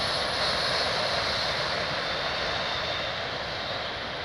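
Freight train CN 383 passing: a steady rumbling and rolling noise of its cars on the rails, easing off slightly toward the end.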